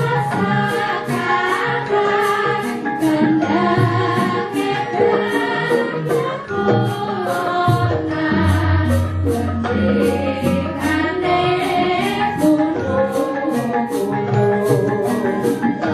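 Three women singing together over Javanese gamelan music, with a steady beat of sharp, high percussive strokes about two to three a second. A deep low note rings from about eight seconds in and lasts several seconds.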